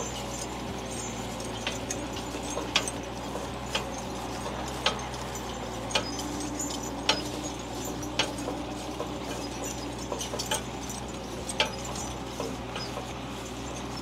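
A vehicle engine running with a steady low hum, with sharp metallic clinks and knocks at irregular intervals, roughly one a second, as it travels over rough ground.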